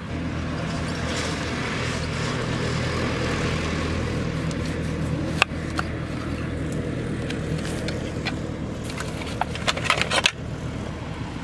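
Knife knocking on a wooden cutting board while a pineapple is cut: one sharp knock about five seconds in and a quick cluster of knocks near the end, over a steady low motor hum.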